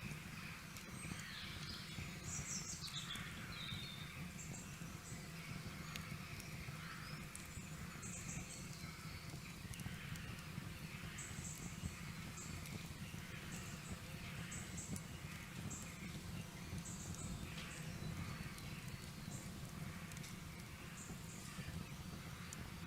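Outdoor ambience: small birds chirping on and off over a steady low hum. From about a third of the way in there are also short, very high chirps repeating roughly every second.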